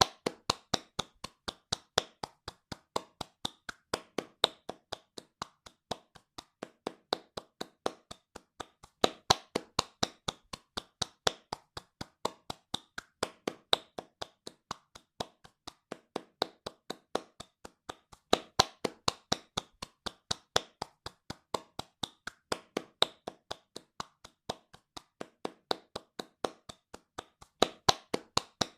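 Hands clapping fast in a steady, even rhythm of about three to four claps a second, some claps louder than others.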